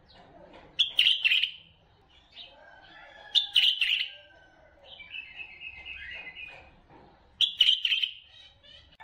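White-eared bulbul song: three loud, bubbling phrases, about a second in, halfway through and near the end, with a softer warbled phrase and scattered chattering notes between them.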